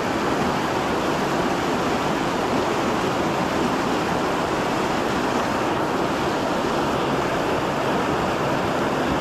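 Fast mountain stream rushing over rocks in whitewater rapids, a steady, loud rush of water.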